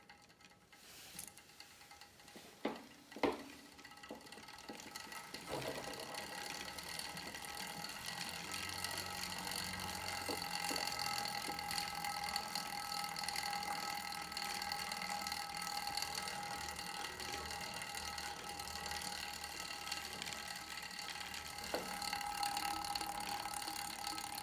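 Star Trac Spinner 7070 indoor cycle being pedalled, its chain and flywheel running with a steady whine and rattle, which the owner takes for chain vibration. Two sharp knocks come about three seconds in, before the running starts a couple of seconds later.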